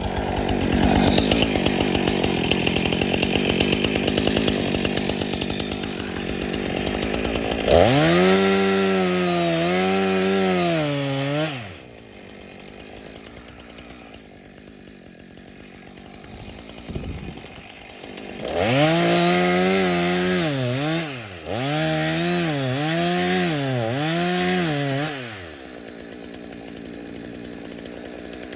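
Jonsered CS2255 two-stroke chainsaw running steadily at high speed for the first several seconds, then revving in quick throttle blips. It drops back to idle, revs in another run of about five blips past the middle, and settles to idle near the end.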